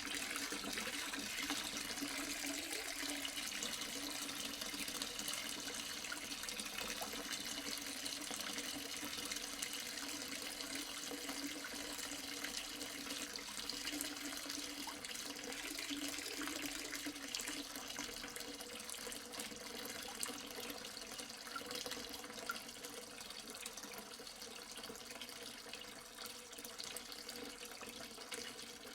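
Water pouring into a half-full sink: a steady splashing rush into standing water, easing off slightly toward the end.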